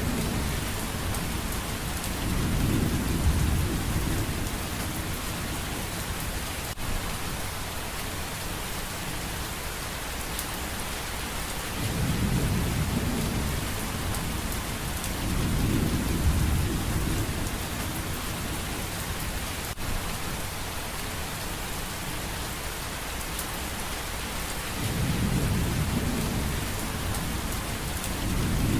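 Steady heavy rain, with low rolls of thunder that swell and fade several times.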